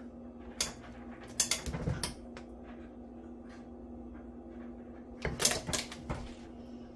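Hand-operated impulse heat sealer sealing a foil pouch: its metal arm clacks down about a second in and is held closed while the seal forms, then is let go and springs back up with a short run of clicks near the end. A faint steady hum runs underneath.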